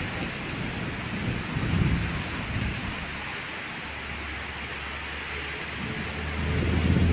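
Steady hiss of rain falling, with low rumbles swelling about two seconds in and again near the end. A low steady hum sets in about halfway through.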